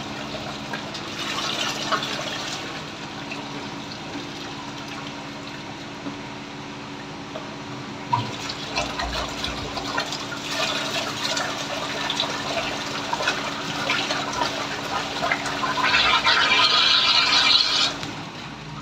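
Water gushing out of a drain pipe and splashing through a mesh strainer into a drain pit, a steady rush that grows louder for a couple of seconds near the end.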